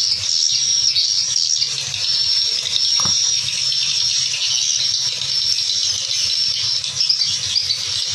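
Recorded swiftlet calls played through tweeters: a dense, continuous high-pitched chirping and twittering, with a single click about three seconds in.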